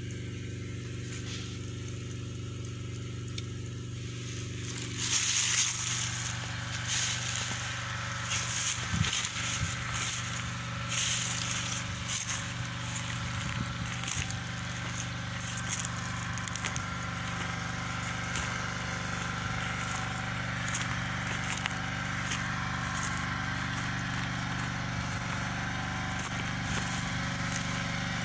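Generator engine running with a steady hum. From about five seconds in, crunching and crackling of footsteps through dry grass and stubble over it.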